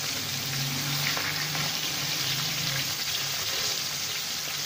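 Chicken breast piece shallow-frying in hot oil in a wok: a steady sizzle. A low hum sits under it for about the first three seconds.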